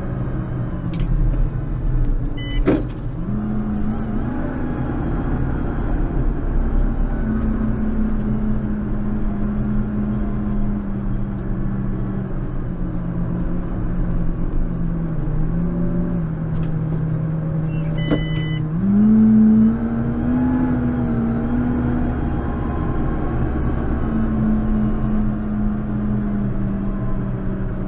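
JCB Fastrac 4220 tractor engine running under load while snow plowing, its engine speed rising about 3 s in and again about 19 s in before settling. Two short high beeps, each with a click, sound about 3 s and 18 s in.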